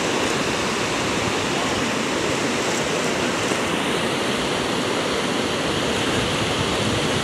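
Fast-flowing river rushing over rapids, a steady, even wash of water noise.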